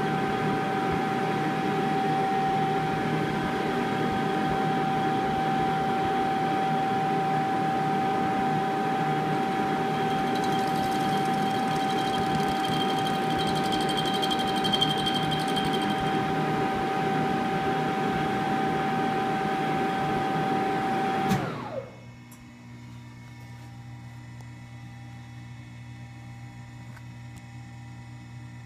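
Monarch 10EE toolroom lathe running under power while facing an aluminium part: a steady machine whine with one strong tone over the spindle and drive noise. About three-quarters of the way through, the running noise cuts off sharply, leaving a low steady hum.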